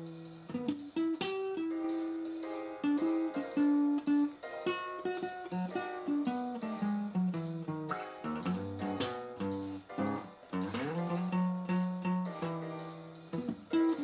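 Background guitar music: plucked single notes and short melodic runs, with one note sliding upward late on.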